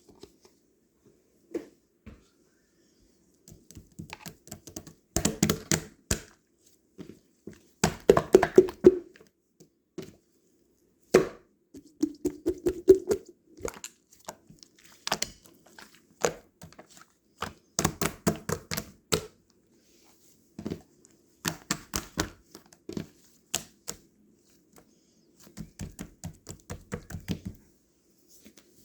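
Close-up sounds of a blueberry pudding being handled: clusters of crackling, tapping and squishing noises in short groups with gaps between them.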